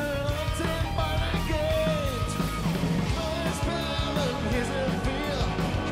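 Live recording of a band playing a German pop-rock song, with a voice singing over the band.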